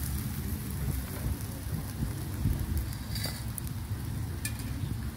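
Chicken sizzling in a wire grill basket over charcoal, with a few sharp crackles, under an uneven low rumble of wind on the microphone.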